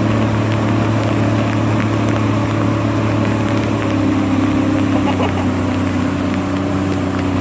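Watercraft engine running at a steady speed, a loud, even drone whose pitch dips slightly about halfway through.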